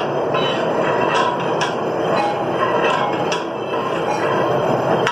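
A long metal stirrer scraping and knocking against a large aluminium degh as a big batch of korma is stirred and fried (bhunai), over a steady rushing noise. Sharp clicks of metal on metal come about every second.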